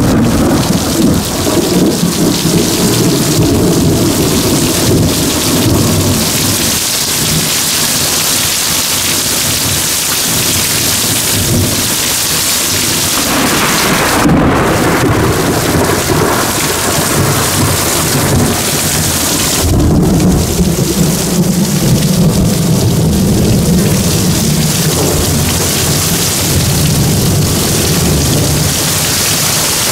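Heavy thunderstorm rain pouring down in a steady hiss. Long low rumbles of thunder come in the first few seconds and again from about twenty seconds in.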